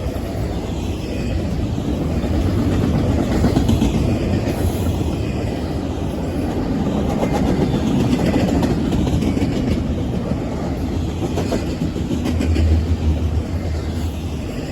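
Long train slowing down as its cars roll past, with a steady heavy rumble and the clickety-clack of wheels over the rails. A deeper low hum swells briefly near the end.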